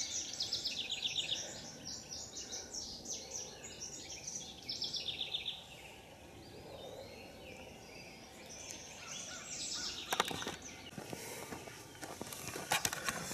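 Songbirds singing in spring woodland, with quick high trills repeating through the first half and fading out after that. A few sharp knocks come near the end.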